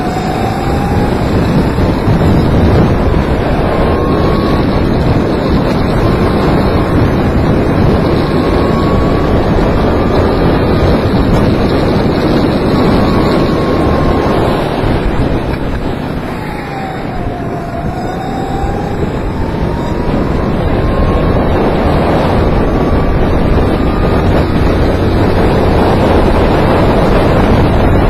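Kart engine at full throttle, its note climbing slowly along the straights, dropping as it eases off for a corner about halfway through, then climbing again. Heavy wind noise on the microphone buries much of the engine.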